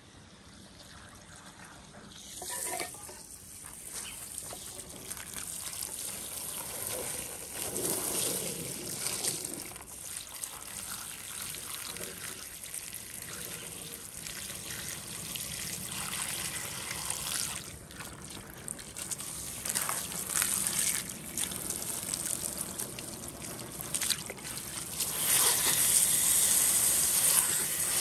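Water trickling and running, with uneven swells and louder in the last few seconds.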